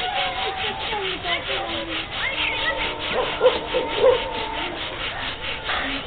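Rapid, forceful in-and-out breathing through the nose in bhastrika pranayama, a rasping rush of air in a fast, steady rhythm of about four strokes a second. The nose hisses with each breath.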